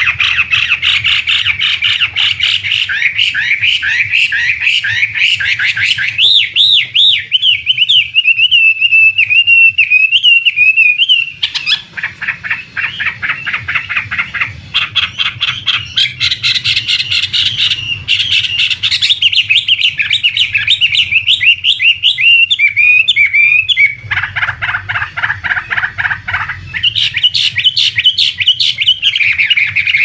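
Chinese hwamei singing a loud, continuous song of varied whistled phrases, fast runs of repeated notes and trills, switching to a new phrase every few seconds.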